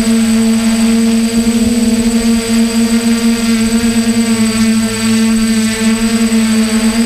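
A hexacopter's six electric motors and propellers humming at a steady pitch, heard close up from a camera mounted on the airframe.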